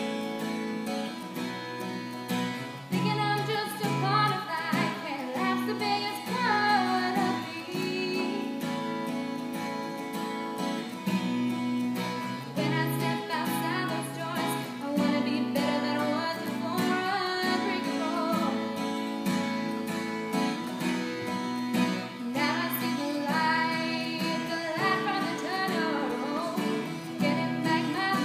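A girl playing an acoustic guitar. She begins singing to it about three seconds in and carries on singing a slow song over the guitar.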